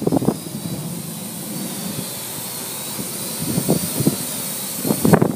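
Parrot AR.Drone 2.0 quadcopter in flight, its four electric motors and propellers giving a steady high whine and rush of air.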